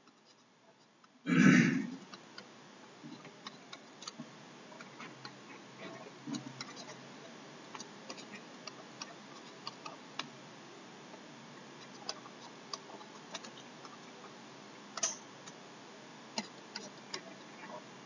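Faint, irregular ticks and taps of a stylus writing on a tablet, over a steady hiss, with one louder tap about fifteen seconds in. About a second and a half in, a short loud vocal noise.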